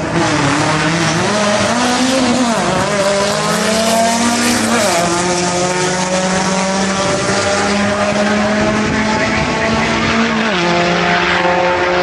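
Drag-racing vehicle's engine at full throttle on a run down the strip, loud and sustained. Its pitch drops sharply three times, at about two and a half, five and ten and a half seconds in.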